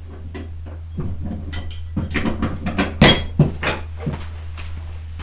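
Metal wrenches clinking and clattering against each other in a run of irregular knocks, with one sharp clank about three seconds in that rings briefly.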